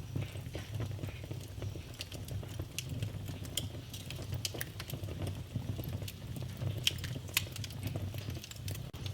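Wood fire burning in a fireplace: a low steady rumble of flames with frequent small crackles and sharper pops scattered irregularly, two louder snaps about seven seconds in.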